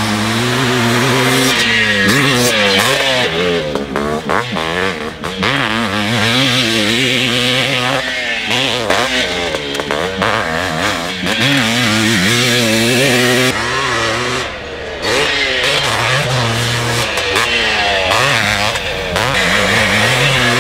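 1983 Honda CR480R's big-bore single-cylinder two-stroke engine being ridden hard, its revs rising and falling over and over. There are brief drops in loudness about four seconds in and again around fourteen seconds.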